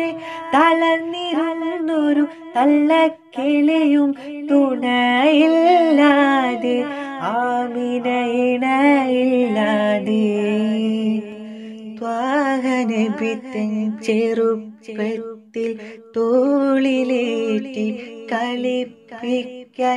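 A single voice singing a slow Malayalam Islamic devotional song with melismatic, ornamented phrases and a long held note a little before halfway. There is no clear instrumental backing.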